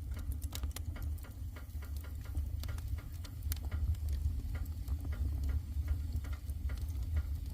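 Wood fire crackling: irregular sharp pops and snaps from the burning wood over a steady low rumble.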